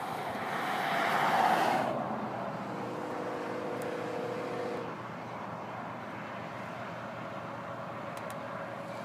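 A distant freight locomotive horn sounds one steady chord of several notes for about two seconds, starting about three seconds in. Before it, a loud rush of noise swells and fades. After it comes a low steady rumble from the approaching train.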